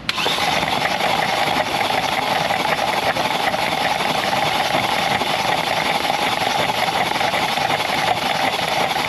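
Starter cranking the Kia Rio's 1.6-litre four-cylinder with its spark plugs out, the engine spinning freely and evenly with no compression while water sprays out of the open plug holes: clearing water from a hydrolocked engine. The cranking starts suddenly and stops just at the end.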